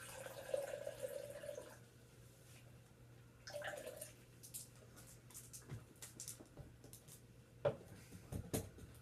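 Orange Gatorade poured from a plastic bottle into a glass, followed by a shorter pour of Mountain Dew from a can about three and a half seconds in. A few light clicks and knocks near the end.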